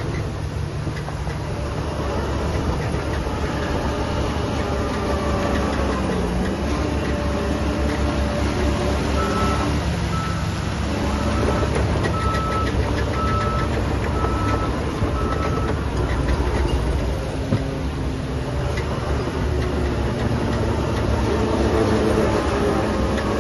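Heavy construction machine's diesel engine running, its pitch rising and falling under load, with a reversing alarm beeping about eight times in the middle.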